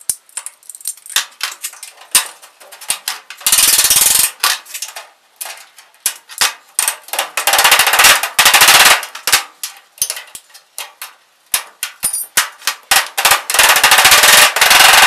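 Hammer blows on galvanized sheet-metal ductwork, driving the drive cleats down the side seams of a plenum. The recording is sped up, so the strikes run together into rapid rattling runs, the densest about four seconds in, around eight to nine seconds, and near the end.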